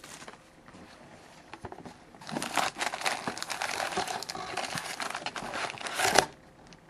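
Plastic and foil wrapping crinkling and tearing as a box of trading card packs is opened and the packs are handled. It is quiet with a few light ticks at first, then a dense stretch of crinkling starts a little over two seconds in and stops sharply about six seconds in.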